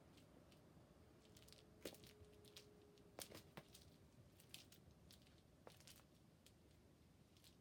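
Near silence: quiet room tone with a few faint scattered clicks and rustles, the loudest about two seconds and three seconds in.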